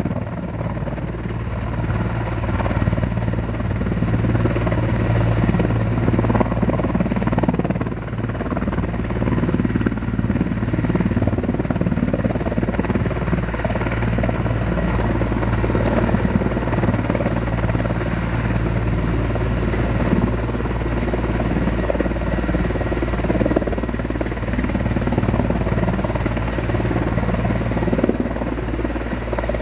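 Sikorsky firefighting helicopter hovering low over the water while it takes on a load for fire fighting, its rotors and turbine engines running steadily.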